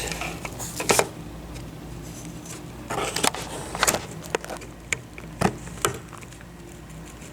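A removed turn signal switch from a 1962 Chrysler 300H being worked by hand, giving a string of sharp clicks and light knocks at irregular intervals. The switch is sticky: its nylon roller is not rolling.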